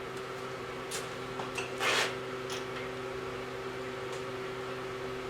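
A steady electric machine hum from the grinder's powered unit, with a few light metallic clicks and one louder knock about two seconds in.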